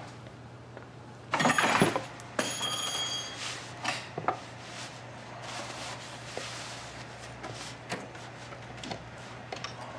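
Clothes rustling and short knocks and clicks as coats on a wall-mounted rack are rummaged through, with a brief high metallic ringing rattle about two to three seconds in.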